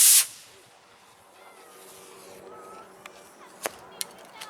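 A model rocket motor's loud rushing hiss at liftoff cuts off about a quarter second in as the burn ends. A faint buzzing hum and a few sharp clicks follow near the end.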